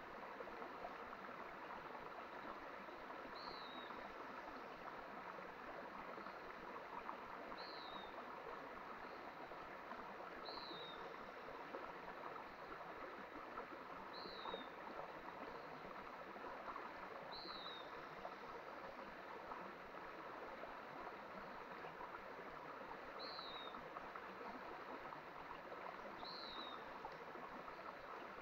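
Stream flowing steadily, an even rush of water. Over it, a bird gives a short, high, slightly falling chirp every three seconds or so.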